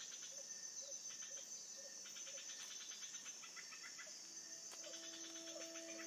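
Rainforest insect chorus: a steady high-pitched drone with fast pulsing trills, and a short low chirp repeating about twice a second. Steady low tones come in after about four seconds.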